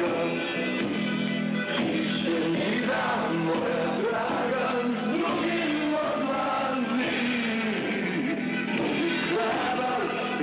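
Music with a group of men singing along, the voices over sustained instrumental notes.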